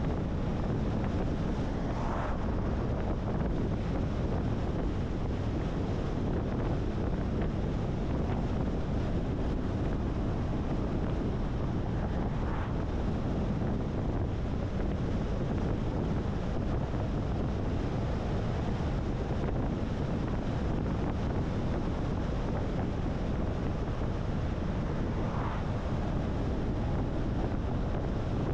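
Steady road and wind noise from a moving car, a constant low rumble with wind buffeting the microphone.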